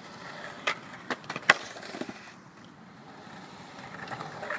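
Skateboard wheels rolling over the concrete of a pool bowl, with a quick run of sharp clacks from the board during backside kickturns on the wall, about a second in; the rolling grows louder near the end.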